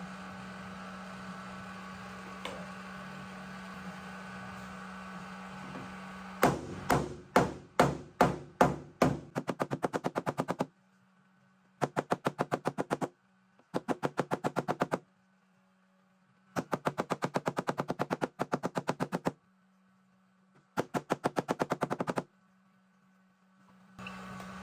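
A steady low hum, then from about six seconds in a series of sharp taps: first about two a second and speeding up, then several quick runs of very rapid, even taps broken by near-silent gaps.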